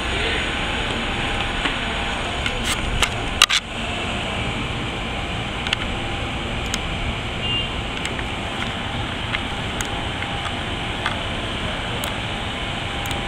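Amtrak Silver Meteor passenger cars rolling past, a steady rumble of steel wheels on the rails with scattered clicks. A couple of sharper knocks come about three and a half seconds in.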